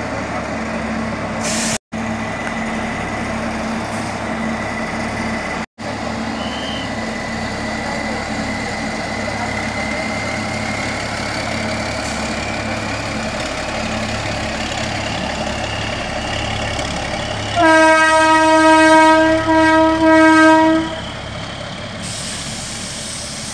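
Diesel OHE inspection car running steadily on the track, then sounding its horn twice near the end: a long blast and a shorter one.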